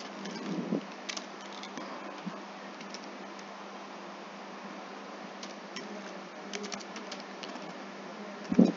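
Computer keyboard keys clicking in short, irregular runs as code is typed, over a steady low hum. A low thump near the end is the loudest sound.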